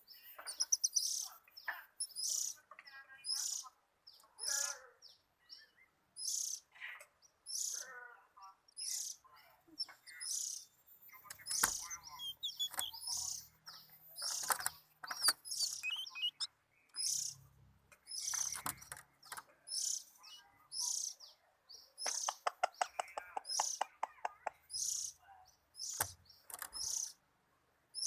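Oriental magpie-robin (kacer) calling, with short high chirps repeated every second or so. About 22 seconds in there is a rapid rattling run. A few sharp knocks are also heard.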